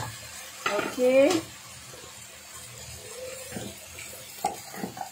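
Chicken sambal frying in oil in a non-stick wok, a faint steady sizzle, with the spatula stirring and knocking against the pan a few times near the end. A short voice sound comes about a second in.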